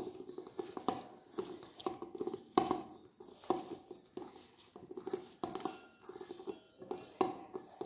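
Hand mixing half-boiled potato cubes in wet spice paste in a stainless steel bowl. The tossed pieces make an irregular soft pattering and rustling, with small clicks against the steel.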